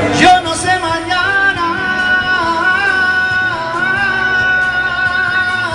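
Live Latin band performance with a singer holding one long, wavering note over the band, after a loud sharp accent near the start.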